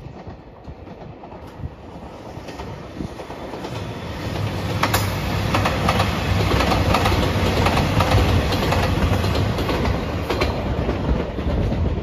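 A JR Shikoku 2700 series diesel limited express, the yellow Anpanman train, passing close by. Its engines give a steady low hum under the wheels clicking over the rail joints, growing louder over the first few seconds and easing slightly near the end.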